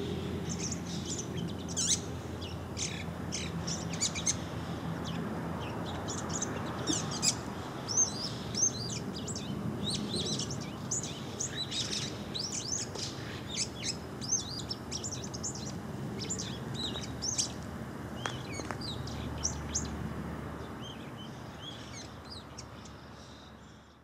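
Male bull-headed shrike calling: a long run of quick, sharp, high notes in close succession, thinning out near the end, over a steady low background hum.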